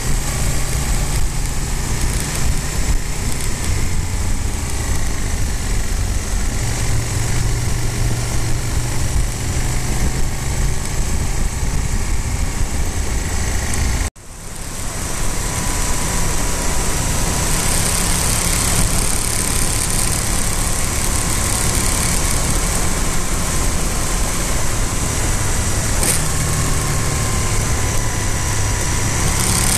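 Motorcycle engine running at road speed, with wind rush on the bike-mounted camera's microphone. The sound drops out for an instant about halfway through, then carries on with more wind hiss.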